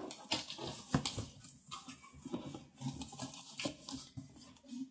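Cardboard box being opened by hand: irregular scraping and rustling of cardboard flaps, with a few sharper knocks.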